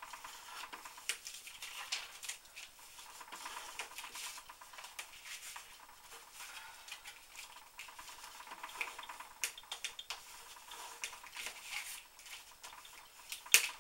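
A bone folder rubbing and scraping along folded cardstock to crease the folds, with paper rustling and small taps, and two sharper clicks near the end.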